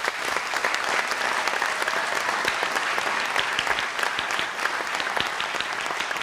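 Audience applauding: many hands clapping together, starting abruptly and holding steady.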